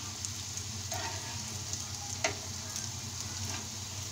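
Oil sizzling steadily around crumb-coated bread pieces shallow-frying in a pan, with two light taps of a knife against the pan as the pieces are turned, about a second in and again a second or so later.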